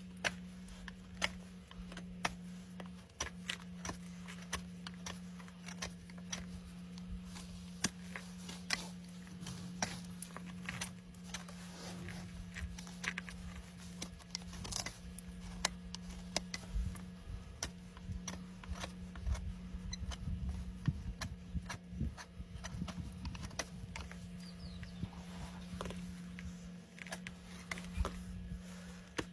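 Horse hoof being trimmed: irregular sharp clicks and snaps of trimming tools working the hoof horn, with occasional low thumps, over a steady low hum.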